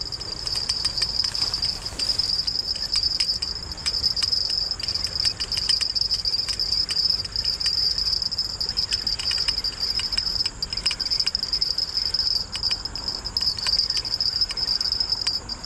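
Steady high-pitched insect chorus, crickets or similar, droning without a break, with scattered faint clicks over it.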